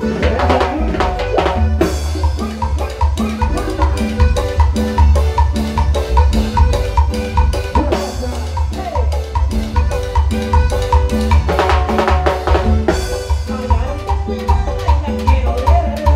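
Live dance-band music with a steady beat of drums and bass. The sound grows fuller and brighter near the start and again about twelve seconds in.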